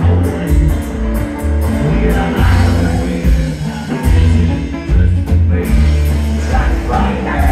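Live band playing loud: banjo and electric guitar over a steady drum beat, with a singer's voice on top.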